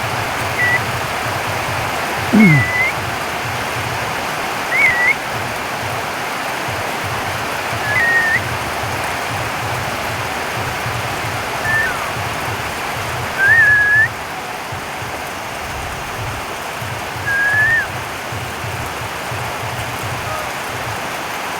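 A bird giving short whistled calls, each a brief upslurred or hooked note, about seven of them spaced a few seconds apart, over the steady hiss of falling rain.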